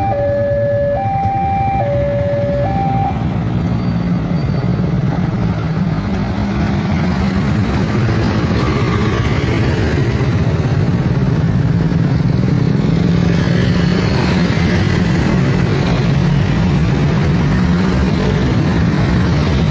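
A level-crossing warning alarm sounds two alternating tones and stops about three seconds in. Then comes continuous road traffic: many motorcycle and car engines running as vehicles move off across the tracks.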